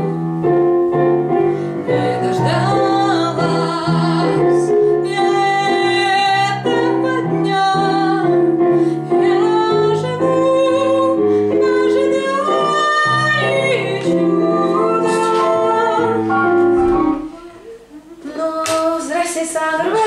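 A woman singing a pop (estrada) song with piano or keyboard accompaniment. The music stops about three seconds before the end, leaving a few quieter sounds.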